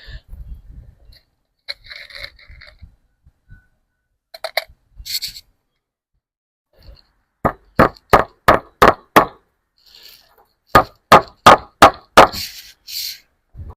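Hammer driving fence staples to hold wire fencing on: two runs of quick, evenly spaced blows, about three a second, starting about halfway through, with light scrapes and clinks before them.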